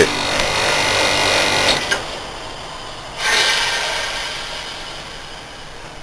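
Heat-pump air conditioner with a Fujitsu General compressor, running in heating mode, then shut off abruptly about two seconds in, its steady running noise dropping away. About a second later a sudden loud hiss of refrigerant, fading over the next few seconds, as the reversing valve snaps back to cooling mode and the high and low side pressures equalise.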